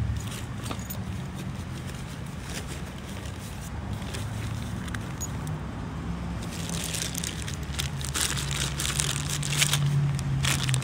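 Tools being handled in a soft fabric tool bag, then a clear zip-top plastic bag crinkling as it is lifted and handled, louder toward the end. A low steady hum runs underneath.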